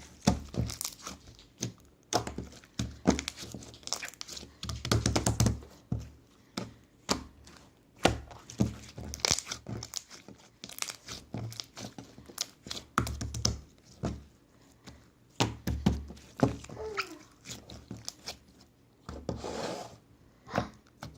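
Glitter chewing-gum slime being squeezed, folded and stretched by hand, making quick irregular clicks and pops from trapped air, with a longer crackling stretch near the end.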